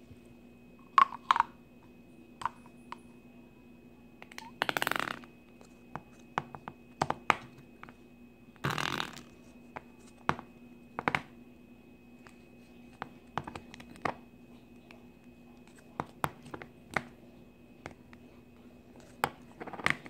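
Fart-noise slime being squeezed and worked by hand in and around its plastic cup: scattered sticky clicks and smacks, with two longer fart-like squelches about five and nine seconds in.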